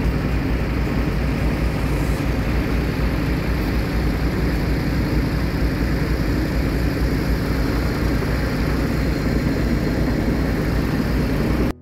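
Wellpoint dewatering pump unit running steadily with a constant low hum, drawing groundwater out through the header pipe and wellpoints; it cuts off suddenly near the end.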